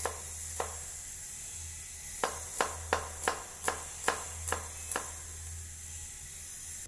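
Cleaver chopping shallots on a wooden chopping board: sharp knocks of the blade on the wood, two near the start, then after a pause a run of about nine at two to three a second.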